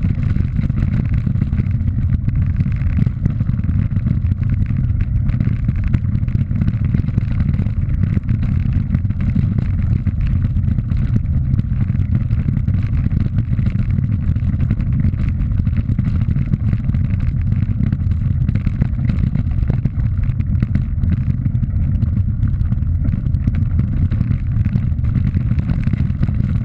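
Steady heavy rumble of riding fast along a stony dirt track, with loose gravel rattling under the wheels.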